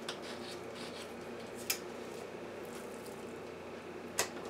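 A kitchen knife cutting a raw chicken breast in half on a countertop, with two sharp clicks about two and a half seconds apart as the blade knocks against the counter, over a steady low hum.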